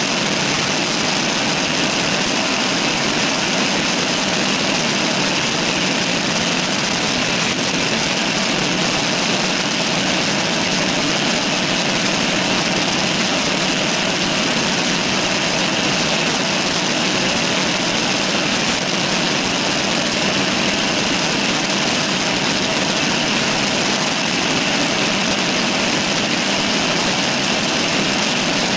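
Steady rushing of wind and road noise picked up by a handlebar-mounted camera on a road bike riding at speed on asphalt.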